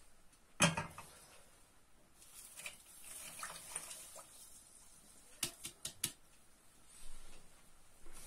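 A metal clank from the pot about half a second in, then granulated sugar poured from a plastic bowl into a pot of hot water with a hiss for about two seconds, followed by about four quick sharp clicks.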